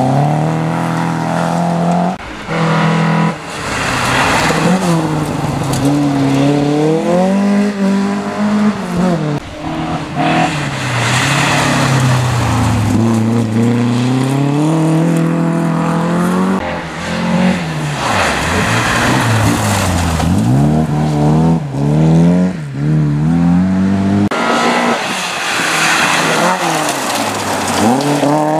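Classic rally cars, among them a Saab 96, an Opel and a Volvo 142, taking a gravel hairpin one after another: each engine drops in pitch as the car brakes and turns in, then revs up again as it accelerates away, with tyres scrabbling on loose gravel. The passes follow each other with sudden cuts between them.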